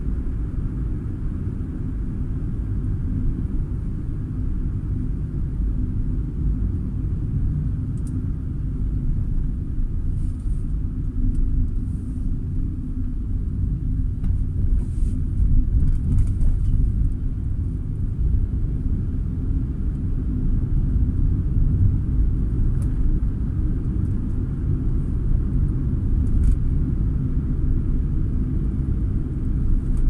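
Car driving at low speed, heard from inside the cabin: a steady low rumble of engine and tyres on the road, with a few faint ticks.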